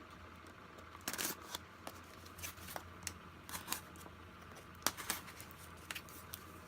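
Hands working at a small box to get it open: scattered clicks, scrapes and rustling of packaging, with a sharper click almost five seconds in.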